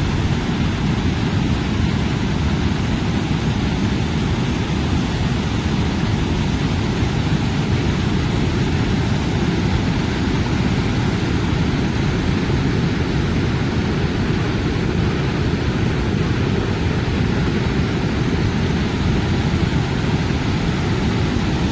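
Waterfall of the Big Sioux River: a steady, deep rush of whitewater pouring over rock cascades and rapids.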